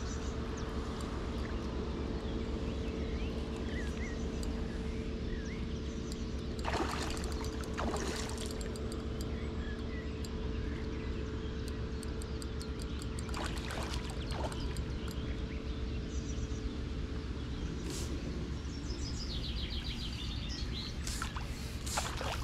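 A steady low hum with a constant tone, with birds chirping now and then and a few short clicks and rustles.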